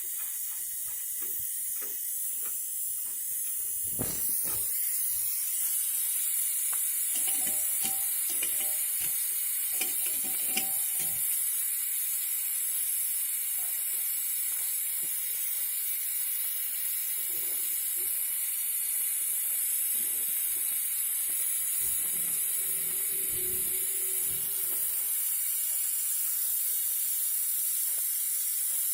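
Steady high-pitched hiss of gas during refrigerator pipe work, with intermittent lower clatter from handling in the middle and again near the end.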